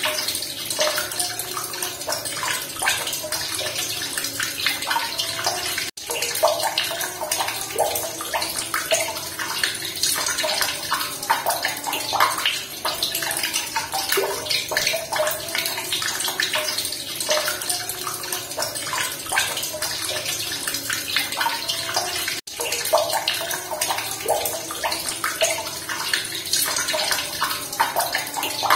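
Running water splashing and trickling steadily, a dense patter of small splashes. The sound cuts out for an instant twice, about 6 and 22 seconds in.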